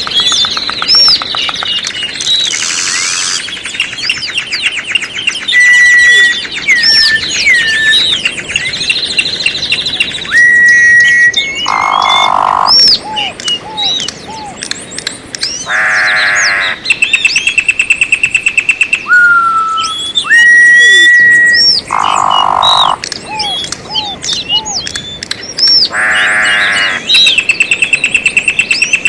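Several birds singing and calling at once: quick chirps, whistled notes and fast trills. From about the middle, loud harsh calls recur every few seconds, and the same sequence of calls seems to come round again.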